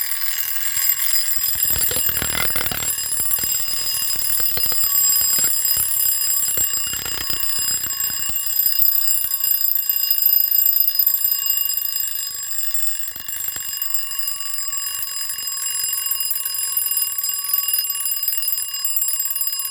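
Scotsguard wind-up fire alarm bell ringing steadily as its wound mechanism runs down.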